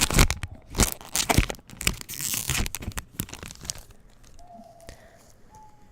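Foil Pokémon card booster pack wrapper being crinkled and torn open, a dense run of crackling for about four seconds that then dies down.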